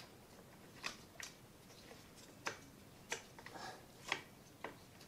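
Faint, irregular light clicks and ticks, about seven in five seconds, as a resin pedal is hand-threaded into the steel crank arm of a kids' bike.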